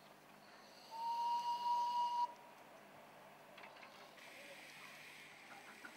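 Miniature steam locomotive's whistle blown once, about a second in: a single steady tone lasting just over a second that cuts off sharply.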